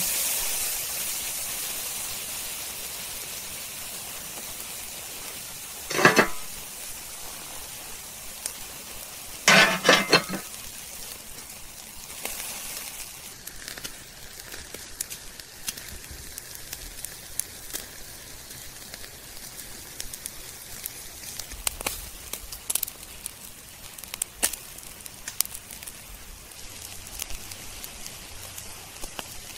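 Thick bone-in ribeye searing on a stainless grill grate over hot charcoal, the searing stage of a reverse sear. A loud sizzle starts as the meat goes down and slowly fades. Two short louder bursts come about six and ten seconds in, and scattered crackles and pops follow.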